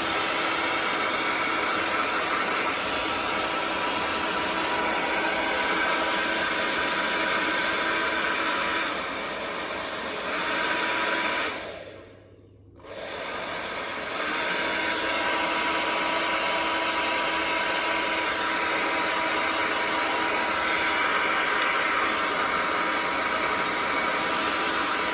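GHD Air 1.0 hairdryer running after its no-power fault was repaired: a steady blowing rush with a faint motor whine. It drops to a lower setting around nine seconds in and comes back up. It is switched off briefly about twelve seconds in, then starts again and runs on steadily.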